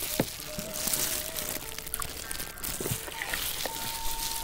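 Wet, sticky squelching and clicks as a plastic-gloved hand tears meat off a large beef rib bone coated in thick sauce, with the glove rustling. A faint held tone sounds in the background from about three and a half seconds in.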